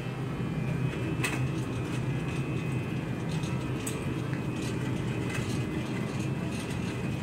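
Wire shopping cart rolling across the floor: a steady rumble and rattle from its wheels and basket, with a sharp click about a second in and another near four seconds.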